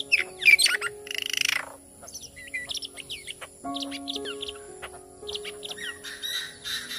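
Bird calls: many quick chirps and whistles, with a loud raspy call about a second and a half in, over background music of held low notes.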